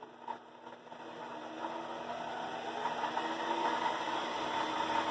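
Shop Fox 6x10 benchtop lathe running: a steady, quiet mechanical hum and whir that grows louder over the first couple of seconds, then holds level.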